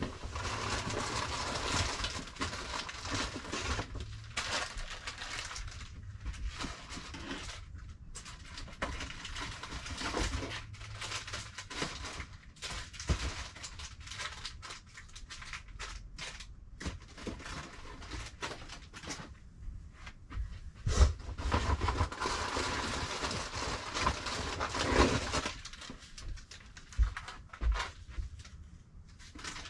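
Rustling and handling noises of cardboard boxes and loose items being moved and sorted by hand, with scattered knocks. The louder stretches come near the start and again about two-thirds of the way through, where a few sharp knocks stand out.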